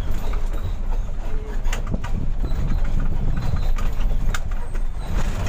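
Mitsubishi Fuso 220 PS truck's diesel engine running under way, heard from inside the cab: a steady low rumble with irregular clicks and knocks of the cab rattling.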